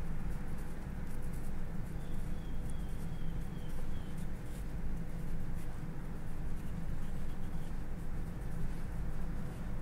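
Faint, soft scratching of a long knife blade shaving a cucumber round into a thin continuous sheet (katsuramuki rotary peeling), with small ticks as the blade advances, over a steady low hum.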